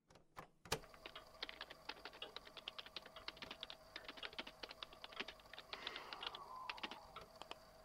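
Typing on a computer keyboard: a quick, irregular run of key clicks, with a faint steady hum underneath.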